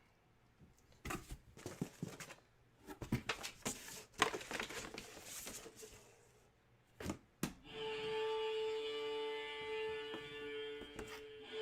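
A box being opened and its contents handled: scraping, rustling and light knocks for several seconds, then two sharp clicks. About eight seconds in, a steady held tone with overtones sets in and carries on.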